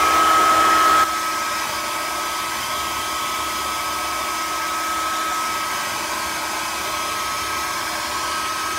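Hair dryer blowing steadily with a constant high motor whine, drying the freshly applied wall filler; it drops to a quieter level about a second in.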